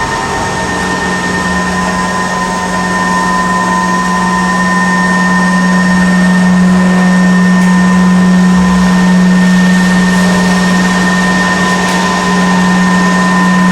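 CNC router's stepper motors whining steadily with one low hum-like tone as an axis is jogged at constant speed. The whine stops abruptly right at the end.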